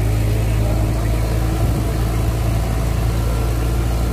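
Tractor diesel engine running steadily under load while pulling a disc harrow through the soil, a constant low drone with no change in revs.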